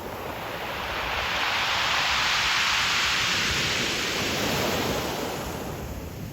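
A single ocean wave surging up a pebble beach and washing back. Its hiss swells over the first two seconds, peaks, then fades away, over a steady low rumble of surf.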